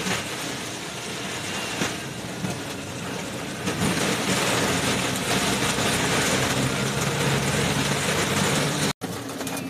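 Heavy rain pelting a car's windscreen and roof, heard from inside the cabin, over the steady low hum of the engine running. The sound drops out abruptly for an instant near the end.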